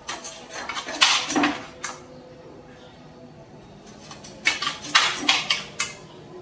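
Quick clinking and scraping of a knife against a steel plate while a chicken is skinned and cut by hand, in two clusters of short strokes, one near the start and one past the middle.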